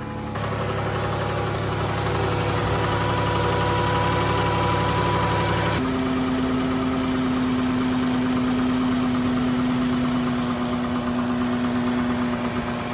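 The 3.6-litre V6 of a 2014 Chrysler Town & Country idling steadily just after a new coolant thermostat housing has been fitted and the coolant refilled. About six seconds in, the engine's tone shifts abruptly.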